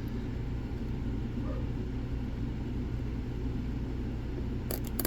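Steady low rumble in the background, with two or three quick sharp clicks near the end from picking tools against the padlock as the picker resets for another attempt.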